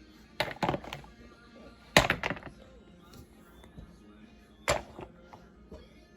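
Hard objects knocking and clattering in sharp, irregular knocks: a few about half a second in, a louder pair about two seconds in, and another pair near the end.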